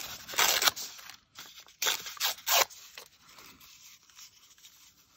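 Paper tearing in a few short, loud rips within the first three seconds, then faint rustling as the piece is handled and pressed onto the collage page.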